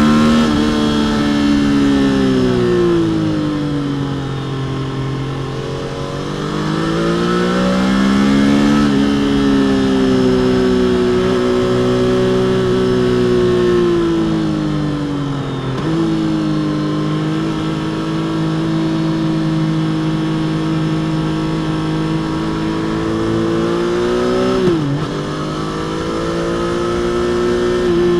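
Stock Triumph Trident 660 inline three-cylinder engine and exhaust under way. The engine falls in pitch for the first few seconds, then rises as the bike accelerates and holds a steady cruise. Its pitch steps down suddenly about halfway through, at a gear change, and dips sharply and recovers near the end.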